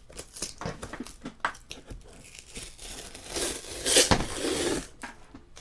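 Cardboard box being torn open by hand, with crinkling and scratching, growing louder about three seconds in and ending in a sharp rip near four seconds.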